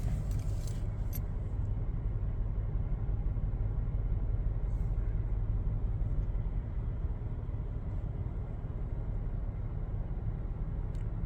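2017 Toyota Sienna's 3.5-litre V6 idling steadily while it logs intermittent misfires on cylinders 3, 5 and 6, which the owner puts down to a faulty injector.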